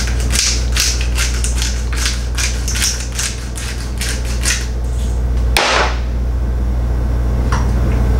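Hand pepper mill being twisted over food, its grinding crackling in quick strokes about two to three a second, then one louder brief scrape about five and a half seconds in, over a steady low hum.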